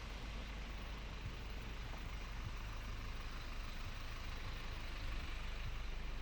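City street traffic: a motor vehicle engine running steadily, with a low rumble under general road noise.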